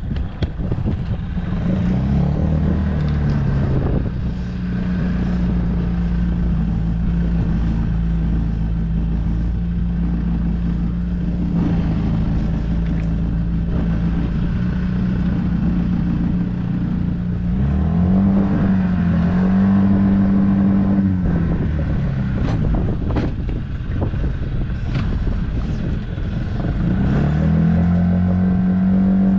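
Boat's outboard motor running, its pitch rising about two seconds in, dipping and rising again later, then picking up once more near the end. Wind noise on the microphone and a few sharp knocks come through.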